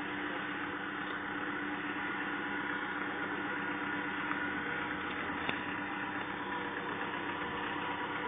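Engine of an off-road 4x4 running steadily at low revs without revving, with two small clicks about halfway through.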